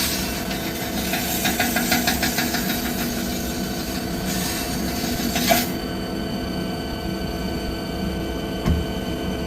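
CNC machine tool cutting metal: a steady machine hum under a fast rasping chatter from the cut. The cutting stops with a click about five and a half seconds in, leaving the machine running more quietly, with a single knock near the end.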